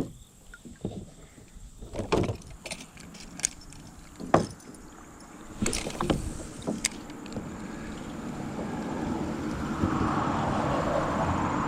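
Scattered knocks and clicks of gear against a kayak, then a steady rushing noise that grows louder over the last few seconds.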